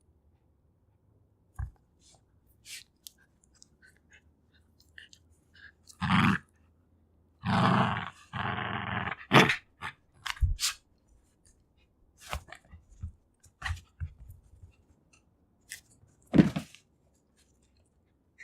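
Two-year-old Jack Russell Terrier's wet mouth noises, licking and clicking over a toy she is fighting for. These are broken by short growls: one about six seconds in, a longer one around eight seconds, and another near the end.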